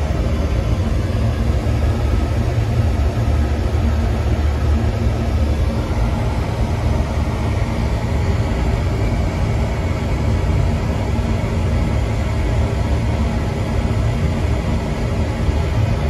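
Oil burner on a Slant/Fin Intrepid cast-iron boiler running, a steady deep rumble from the firing burner and its blower.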